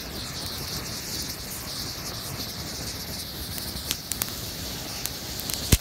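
Homemade potassium nitrate and sugar rocket motor burning in place on the ground: a steady hiss of flame and exhaust, with a few sharp cracks about four seconds in and a louder one near the end.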